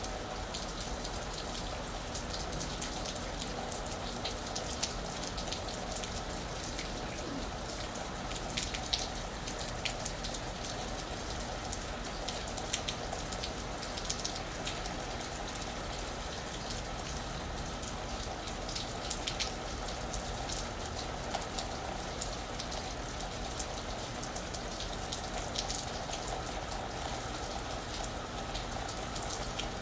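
Steady rain falling on a roof, a constant patter with many separate drop hits standing out.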